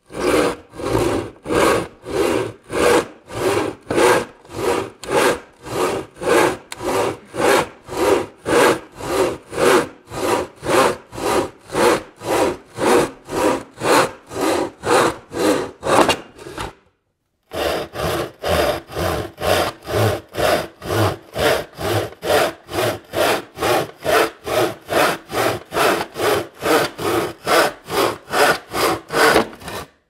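Hand panel saw cutting through wood in even back-and-forth rasping strokes, about two a second. The sawing breaks off for a moment about 17 seconds in, then goes on at the same pace.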